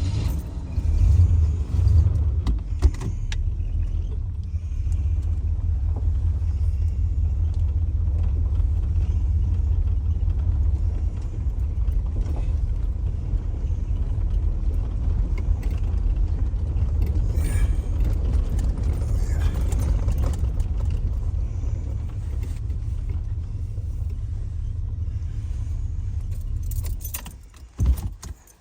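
Truck driving at low speed with a steady low engine and road rumble and light rattling, heard from inside the cab. The rumble falls away near the end, with a single knock.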